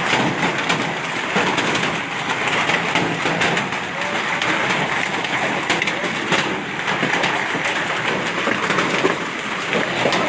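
Hail and heavy rain pelting down, a dense, steady clatter of many small impacts.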